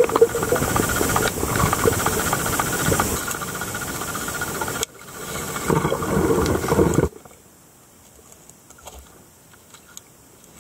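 Underwater sound in a flowing river: a loud hiss and crackle of turbulent water and bubbles. It cuts off sharply about seven seconds in, leaving a faint hiss with scattered small ticks.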